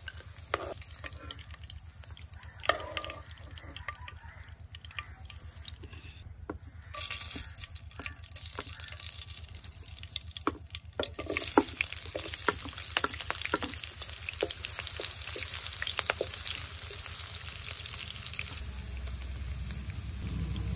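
Hot oil frying in a nonstick kadai: scattered pops and clicks while fried paneer cubes are spooned out, then a steady sizzle that grows louder about seven seconds in and again about eleven seconds in, as whole spices and then sliced onions go into the oil.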